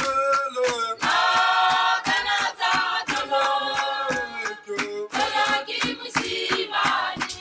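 Music: voices singing together over a percussive beat.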